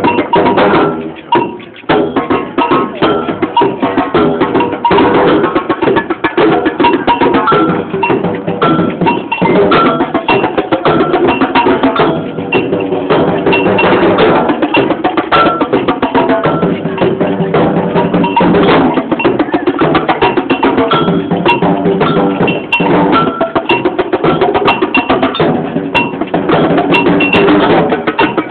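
Samba percussion band drumming a fast, dense groove on large bass drums and smaller drums, with a brief drop in the playing about a second in.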